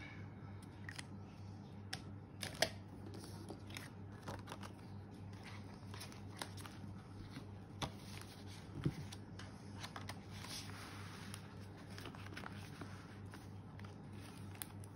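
Hands handling a ring binder and its paper sheets and clear plastic pockets: scattered small clicks and rustles, the sharpest about two and a half seconds in and again about nine seconds in, over a low steady hum.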